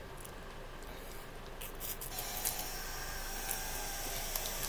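Faint crinkling of a sweet wrapper handled in the fingers: a few soft scattered crackles over a steady hiss.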